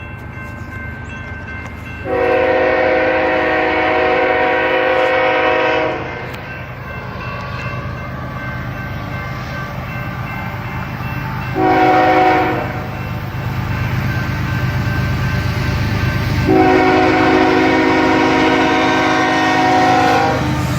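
Locomotive air horn sounding several tones together for a road crossing: a long blast, a short one, then another long one, over the steady rumble of the passing train.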